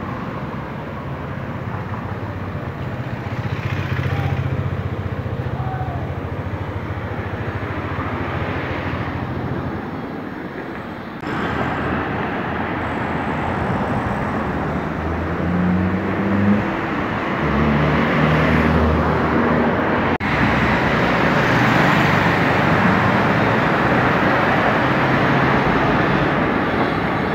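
Motor vehicle engines and street traffic running steadily, with an engine changing pitch in steps for a few seconds past the middle.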